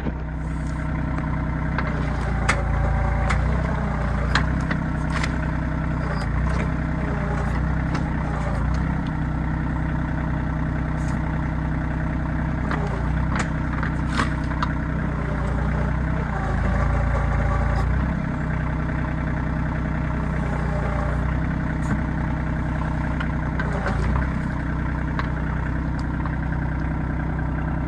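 RK25 compact tractor's diesel engine running steadily while its backhoe is worked, the engine note growing heavier a few times under hydraulic load. Scattered sharp clicks and knocks of the backhoe's metal parts sound over the engine.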